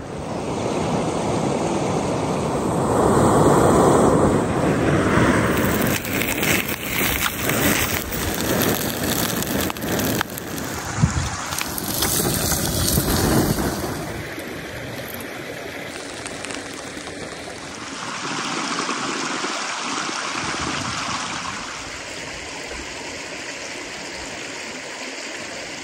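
Wind buffeting the microphone in gusts, louder in the first half and steadier later. Scattered clicks and knocks ride over it, with one sharp knock about eleven seconds in.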